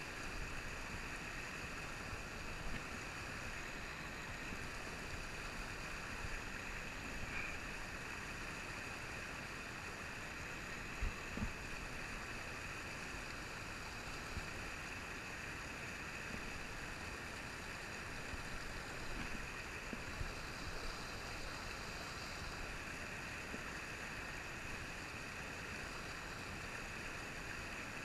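Steady rush of a rocky trout stream's rapids, white water pouring over a bedrock ledge, with two brief knocks about eleven seconds in.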